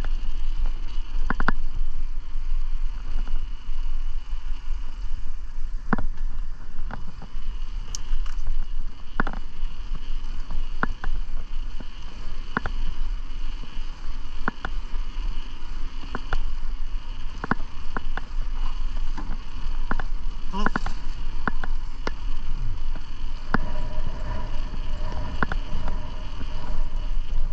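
Bicycle ride on a paved trail: a steady low rumble of wind on the microphone and tyres rolling, with sharp ticks or knocks every second or two.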